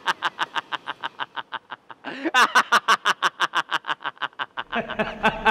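A long laugh, 'ha ha ha', about five pulses a second, broken by a sharp breath in about two seconds in and then going on. A low steady hum with held tones comes in near the end.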